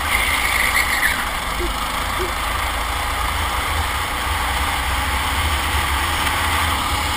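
Racing kart running at speed, heard from a camera mounted on the kart: a steady engine rumble mixed with rushing wind noise, growing slightly louder along the straight.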